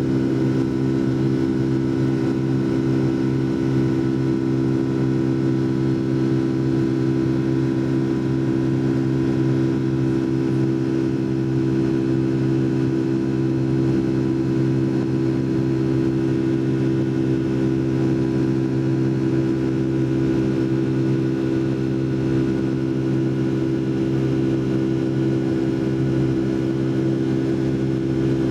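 Boeing 757-200's Rolls-Royce RB211 engines heard from inside the passenger cabin: a steady, even drone with a low hum.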